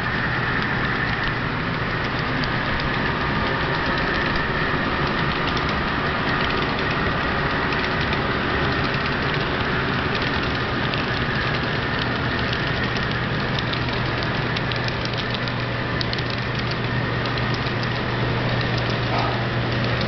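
HO scale model freight train of diesel locomotives and covered hoppers running past: a steady diesel engine drone with light, quick clicking of wheels over the track.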